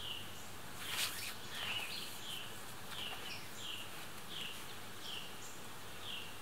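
A bird in the background repeating one short falling chirp, roughly once every three-quarters of a second, over quiet outdoor ambience. A brief rustle about a second in is the loudest moment.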